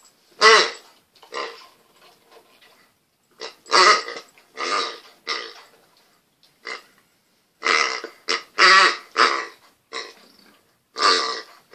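Rubber honking pig toy squeezed by a dog's jaws, giving about a dozen short honks in irregular bunches: a loud one about half a second in, a cluster around four to five seconds and another around eight to nine seconds, and one more near the end.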